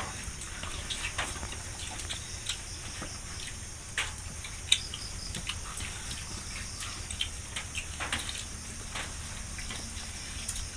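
Steady high-pitched drone of forest insects, with scattered small clicks and taps throughout and one sharper click a little under five seconds in.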